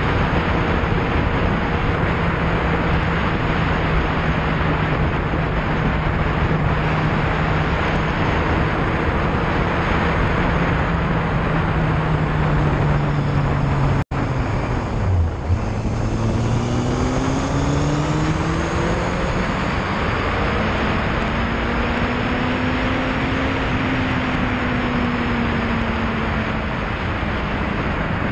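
Yamaha Fazer motorcycle engine running at a steady cruise under heavy wind rush on the microphone. About halfway through the sound cuts off abruptly for an instant. Then the revs climb, drop at a gear change and climb again before easing off as the bike accelerates.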